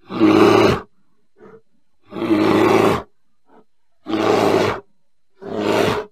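A bear giving four short, loud roars, each under a second long, about every one and a half to two seconds, with two faint short sounds between them.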